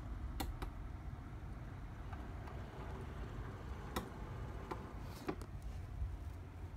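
HO-scale brass Union Pacific 4-8-4 model locomotive and tender running over rail joints and a dual-gauge turnout: a handful of light, irregular clicks from the wheels over a steady low rumble.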